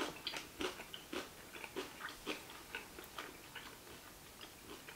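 Close-miked chewing of a mouthful of sushi roll: soft, moist chewing sounds about twice a second, growing fainter toward the end.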